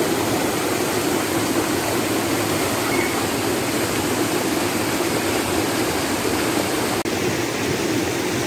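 Shallow rocky river rushing steadily over boulders and small cascades. The sound briefly cuts out about seven seconds in.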